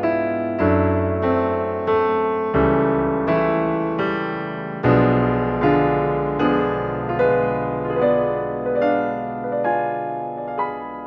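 Gentle background piano music: notes struck about twice a second over low held bass notes, easing off into a last decaying chord near the end.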